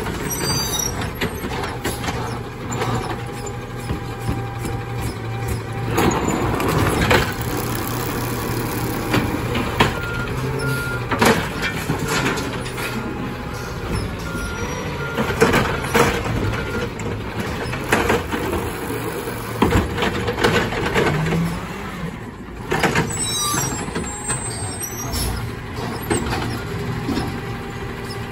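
Peterbilt 520 automated side-loader garbage truck running while its hydraulic arm lifts a recycling cart, tips it over the hopper and sets it back down, with repeated knocks and clatter from the cart and arm. A run of short beeps sounds in the middle.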